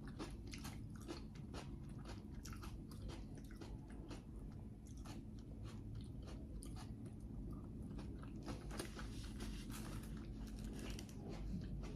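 A person chewing food close to the microphone: soft, irregular crunching clicks, several a second, over a faint low hum.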